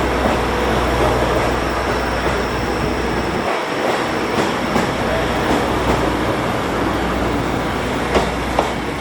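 JR East GV-E400 series diesel-electric railcar pulling into a station: a steady rumble of the engine and wheels on the rails, with two sharp clicks near the end.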